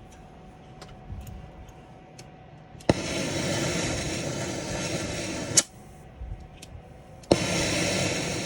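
Brazing torch flame hissing in two bursts on a copper line joint, each burst starting with a sharp click, as the torch is reapplied to fill a gap in the braze.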